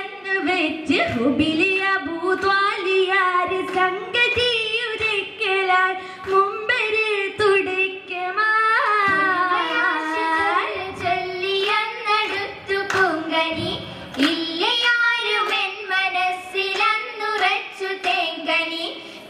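Girls singing an Oppana song, the Mappila wedding song of Kerala, in sung phrases that carry on without a break.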